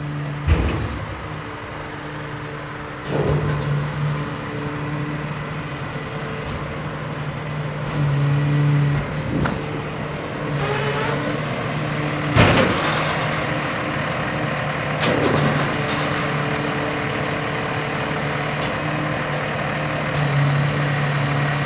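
Diesel truck engine running with a steady low hum that swells louder for a few seconds at a time while the hydraulic ramp of a lowboy trailer is raised. Sharp metallic knocks come every few seconds, and there is a brief hiss near the middle.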